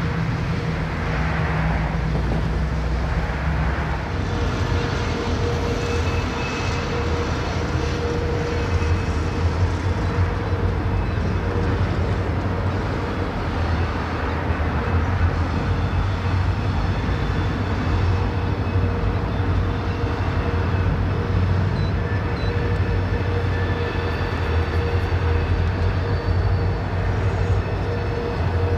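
Vintage diesel locomotive engine running steadily: a low drone with a steady higher tone above it.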